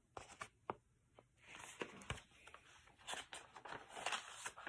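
Faint rustling and soft ticks of a paperback book's pages being handled and turned.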